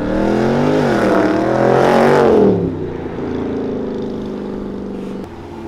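Nissan 370Z's V6 revving hard as the car accelerates past: the pitch climbs, dips at a gear change about a second in, then climbs again to its loudest. After about three seconds a Dodge Charger's V8 takes over with a steady engine note as it pulls away, breaking off sharply near the end.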